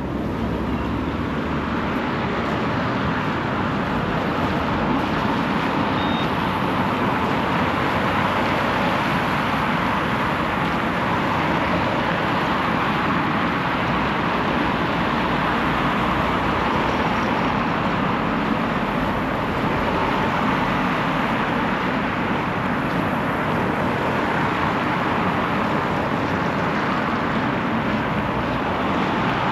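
Steady road traffic noise: a continuous, even roar of passing vehicles with no single event standing out.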